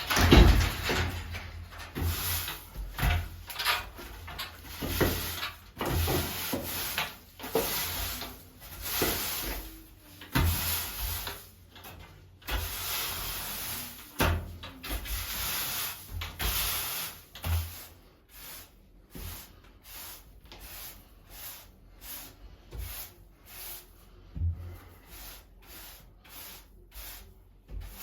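Objects being moved and handled during a clean-up: irregular knocks, rubbing and scraping strokes, busier and louder in the first half and lighter, shorter taps later.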